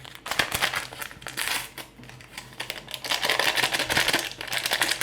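Crinkling and rustling of a flan-powder sachet being handled and emptied into the mixing bowl, with a denser stretch of rustling in the second half.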